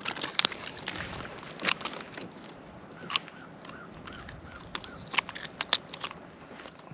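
Scattered small clicks and taps of hands handling a fishing rig and line on a kayak, over a steady wash of water and wind noise.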